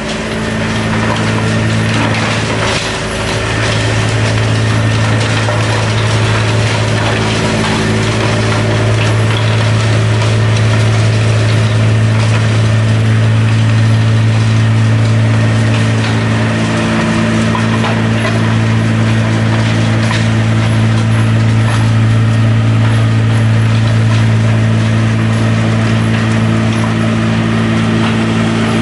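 Compact tracked mobile crusher running steadily: a constant low drive hum under a continuous grinding, rattling noise as material is crushed and pours out of the discharge chute.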